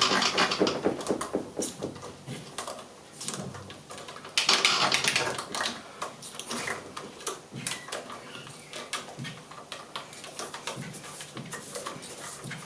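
Hare and Forbes AL335 metal lathe taking a light finishing cut with a radius-tipped tool: a hissing cut at the start and again about four seconds in, with scattered clicking and ticking between.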